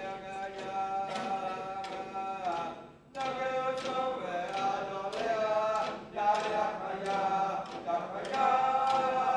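King Island Iñupiaq drum song: a group singing together in a chant-like melody over a steady beat of frame drums. The singing breaks off briefly about three seconds in, then starts again.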